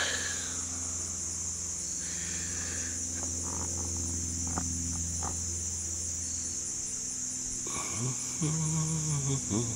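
A steady, high-pitched chorus of insects trilling, typical of crickets, over a low hum that stops about two-thirds of the way in. Near the end, a person's brief low murmur is the loudest sound.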